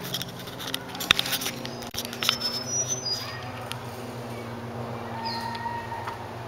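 Handling noise from a handheld camera being swung about and then held at arm's length: irregular knocks and rubbing, loudest about a second in and again around two seconds in. A few short high whistles come near the middle, and some held tones near the end.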